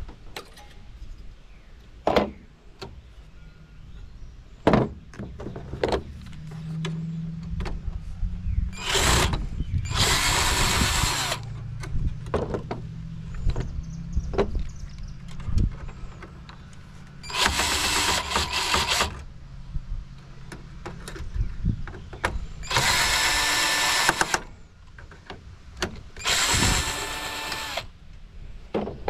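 A power drill runs in four short bursts of about a second and a half each, backing out screws while a computer tower is taken apart. Between the bursts come sharp clicks and knocks of metal parts being handled.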